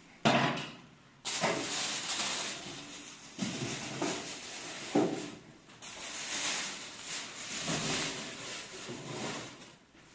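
Thin plastic grocery bags rustling and crinkling as vegetables are handled, in long noisy stretches, with a sharp knock near the start and another about five seconds in.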